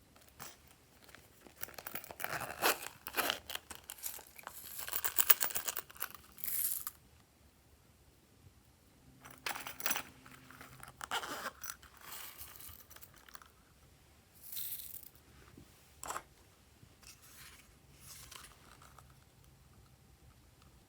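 Hands stretching and squishing glossy slime, making sticky crackling and popping sounds. They come in a dense run over the first several seconds, then in shorter separate bursts.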